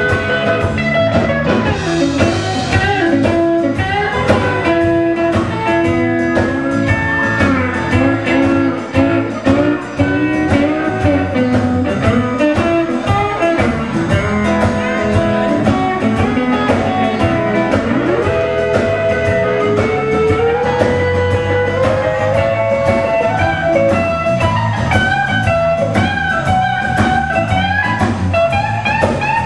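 Blues band playing: a lead guitar with bent notes over bass and drums.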